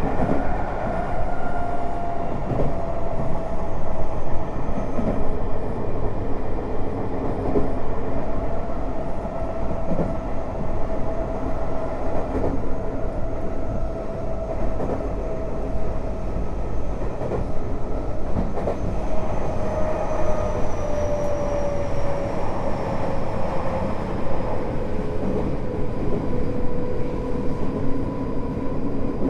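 Running sound inside a Tokyo Metro 05 series car with Mitsubishi IGBT VVVF inverter drive: a steady rumble of wheels on rail with faint rail-joint clicks. A thin motor tone falls slowly in pitch from about two-thirds of the way through as the train slows.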